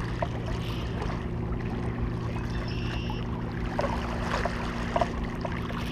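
Steady low drone of a motor, even and unchanging, with faint scattered clicks over it.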